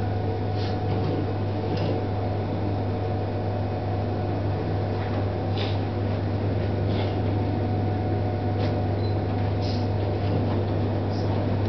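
Steady low mechanical hum with a few faint short ticks.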